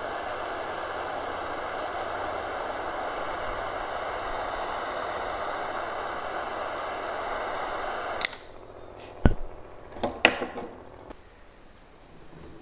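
A steady hiss that cuts off with a sharp click about eight seconds in, followed by three or four sharp knocks, as of a knife cutting kinetic sand.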